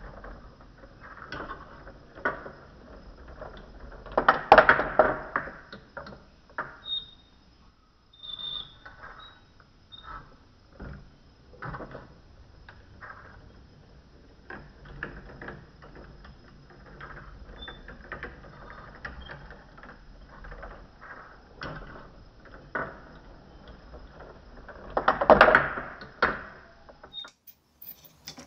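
Marble-run automaton running: marbles clicking and clattering against each other and the track as the motor-driven auger lifts them, with a louder burst of clatter about four seconds in and another near the end.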